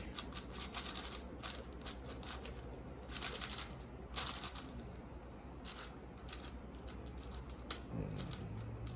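X-Man Shadow V2 M speed cube being turned quickly by hand. Its plastic layers click in fast runs. The cube is freshly lubricated with silk lube and is being broken in.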